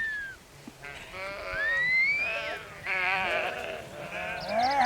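Flock of sheep bleating, several wavering calls overlapping one after another. A thin whistle-like call falls in pitch at the start, and another rises about two seconds in.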